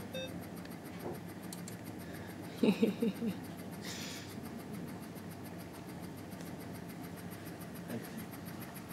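Steady low hum of medical equipment in a hospital intensive-care room, with a faint electronic monitor beep at the very start. About three seconds in, a brief soft human vocal sound comes in four quick pulses, followed by a short breathy hiss.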